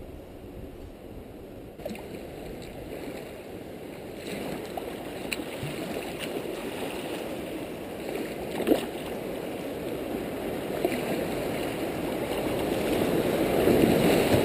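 Rushing water of a shallow creek riffle, growing steadily louder as the kayak runs into the broken water, with a few light knocks.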